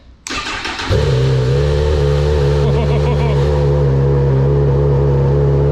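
Honda CB1000R's inline-four engine being started: a short burst of cranking, then it catches about a second in and settles into a steady idle.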